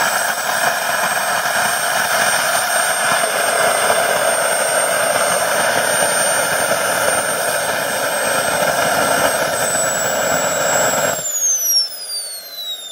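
Kerosene-fuelled model jet turbine running steadily, a high whine over its roar. About eleven seconds in the roar cuts off suddenly and the whine falls steadily as the turbine spools down after shutdown.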